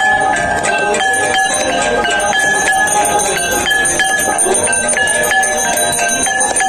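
Hand bells rung rapidly and continuously for a Hindu aarti, a dense metallic ringing renewed by quick strikes several times a second.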